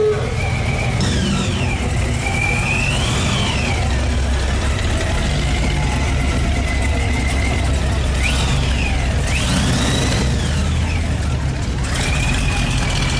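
Steady deep rumble of slow-cruising classic car engines, loudest as a 1969 Chevrolet Chevelle SS's V8 rolls past past the middle. High whistles rising and falling in pitch cut in near the start and again past the middle.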